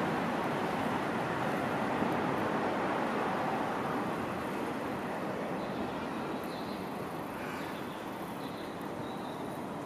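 Electric commuter train running along the track as it pulls away, its rolling noise slowly fading. A few faint high tones come in during the second half.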